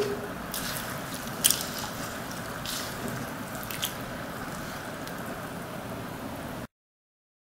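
A hand swishing and rubbing whole wheat berries soaked for 8 hours in a bowl of water, with a few short splashes over a steady hiss. The sound cuts off to silence near the end.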